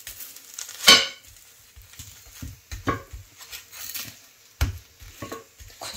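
Metal cooking utensil knocking and scraping on a dosa griddle while a masala dosa is folded: a few separate sharp clacks, the loudest about a second in and another near the end.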